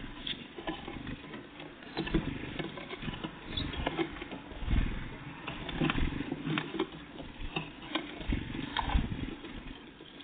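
Great tits and blue tits at a bird feeder: irregular tapping, pecking and knocking as they land and pick at the seed.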